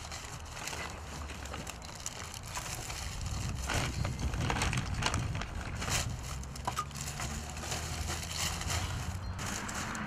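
Newspaper being crumpled and packed by hand into the mouth of a clay chiminea, rustling and crackling irregularly, with a few sharper crackles.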